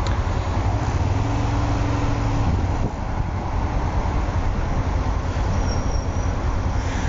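Kawasaki ER-5 motorcycle's parallel-twin engine running at low speed in slow, queuing traffic, heard from the bike together with the surrounding road traffic. A steadier low hum holds for about a second and a half, starting about a second in.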